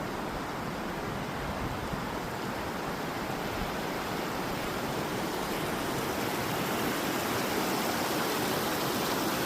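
River water rushing in a steady, unbroken wash of noise, a little louder in the second half.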